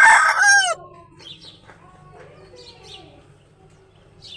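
Aseel rooster's crow, loud and ending in a falling drawn-out note within the first second. Then small birds chirp softly in the background.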